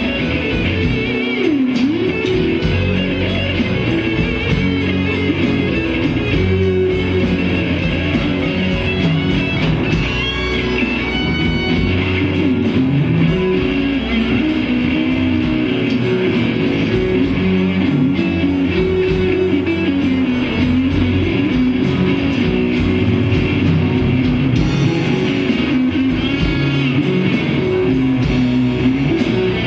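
Live blues band playing a slow blues, with electric and acoustic guitars, drums, bass, keyboard and harmonica.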